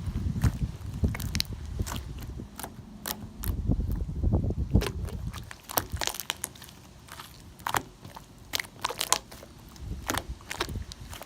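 Slime being squeezed and pressed by hand, giving many irregular sharp clicks, pops and crackles, with low rumbling handling noise in the first half.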